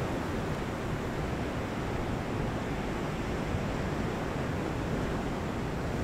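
Steady rush of ocean surf breaking against the rocks, with wind on the microphone.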